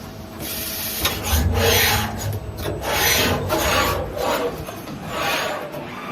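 Fully automatic wire butt welding machine running: several rasping, hissing bursts, each about half a second long and spaced a second or so apart, over a low hum.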